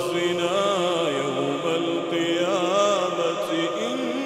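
A male reciter chanting the Quran in a drawn-out melodic line, holding long notes with wavering, ornamented turns of pitch.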